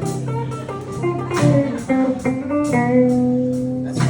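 Blues band playing live in an instrumental passage: guitar over a steady drum beat with cymbal hits.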